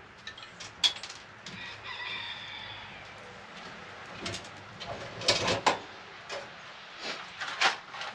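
Metal clanks and knocks from a small steel Winnerwell wood stove as its firebox door is handled while the fire is started, ending with the door being shut. A drawn-out high-pitched sound with several tones at once runs from about a second and a half to three seconds in.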